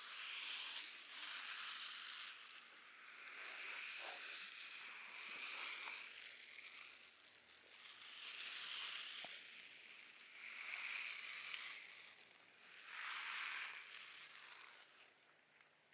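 Sensory brush scratched across a person's back in repeated slow strokes, a dry, bristly scratching, about one stroke every second and a half. It stops near the end.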